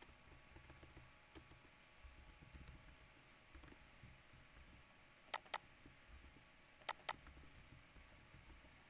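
Faint computer keyboard typing and clicking. There are a few soft keystrokes and two pairs of sharp clicks, one about five seconds in and one about seven seconds in.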